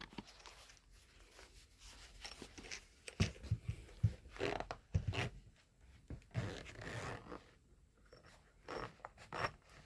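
Small zippered EDC pouch being handled and unzipped, with short, irregular scraping and rustling sounds.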